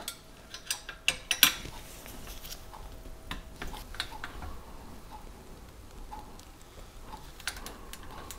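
Scattered light metallic clicks and clinks of a wrench, nuts and washers on the steel shear bolts of a snowblower auger hub as the nuts are fitted and tightened, most of them in the first couple of seconds.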